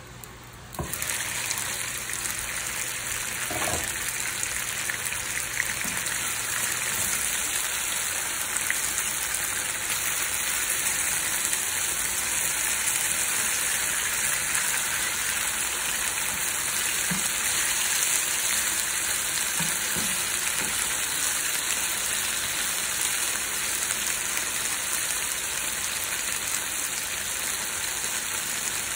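Chicken leg quarters and pickles frying in oil in a nonstick pan: a steady sizzle that gets suddenly louder about a second in, with a few light spatula taps.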